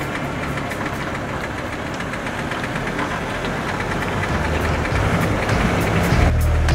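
Van engine running with steady tyre and road noise, picked up close to the front wheel outside the vehicle; the engine grows louder about four seconds in. Music comes in near the end.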